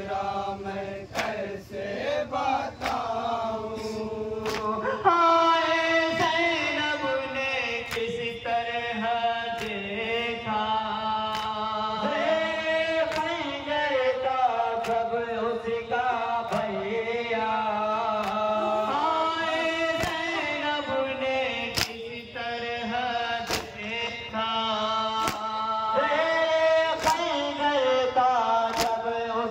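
Male reciters singing a nauha lament into a microphone, the voices growing fuller about five seconds in, with a crowd's chest-beating (matam) slaps striking in time about once a second.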